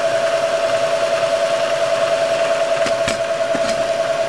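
Milling machine running, its end mill cutting into the inside of an aluminium piston to lighten it: a steady high hum with a fast, even pulse, and a few ticks about three seconds in.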